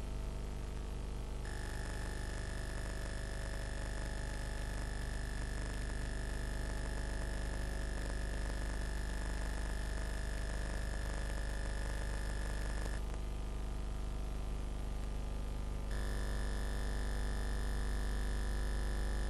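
Steady low electrical hum and buzz with hiss from old videotape recordings, with no music or voice. The mix of hum and tones shifts a little over a second in, and again twice near the end as one recording gives way to the next.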